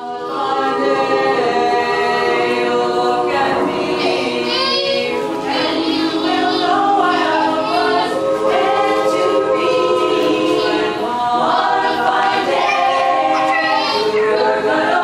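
Women's a cappella chorus singing in close harmony, with sustained chords that shift and move throughout.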